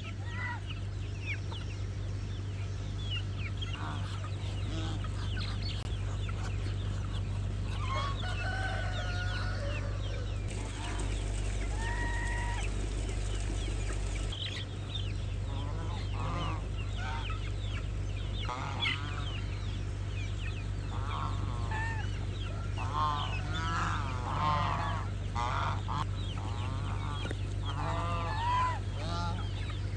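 Chickens clucking and calling, many short overlapping calls that grow denser in the second half, over a steady low hum.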